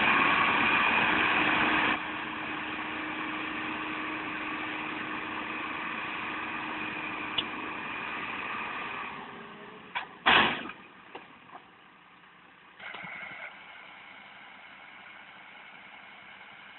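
Diesel engines of a farm tractor and a crawler bulldozer working under load while pulling an overturned sugarcane trailer upright. The engines are loud for the first two seconds, then run steadily and fade after about nine seconds. A loud thump comes about ten seconds in, followed by a few clicks and a brief rise in engine sound a little later.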